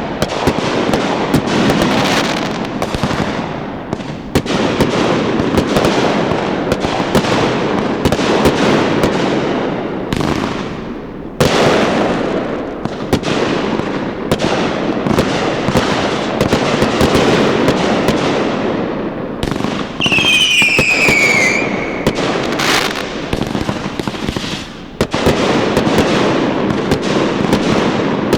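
Fireworks show: a dense, continuous barrage of aerial shell bursts and crackling, with a sharp bang about eleven seconds in and a falling whistle about twenty seconds in.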